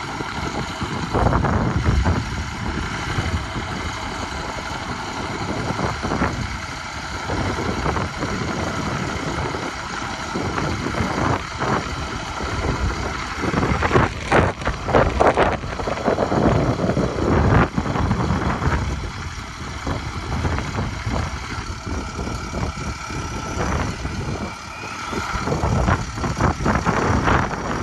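A truck engine running steadily at idle, with scattered knocks and clatter over it, most of them about halfway through and near the end.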